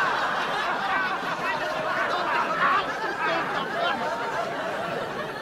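Studio audience laughing, many voices at once, heaviest at the start and slowly dying down.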